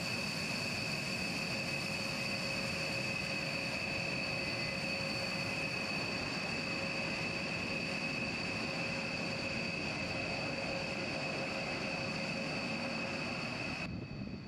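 B-1B Lancer's four General Electric F101 turbofan engines running at taxi power: a steady jet whine with high whistling tones over a broad rushing noise. The high whine drops away near the end.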